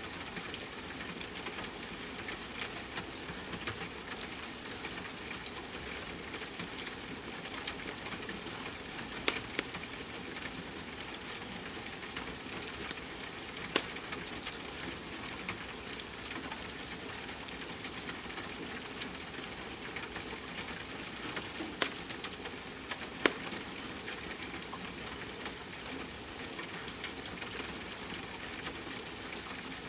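Steady hiss of rain mixed with a crackling wood fire, whose sharp pops and snaps come irregularly every second or two, a few of them louder.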